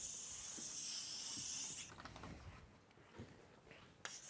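Chalk dragged across a blackboard in one long stroke: a steady, scratchy hiss for about the first two seconds, then faint shuffling and a few short chalk taps near the end.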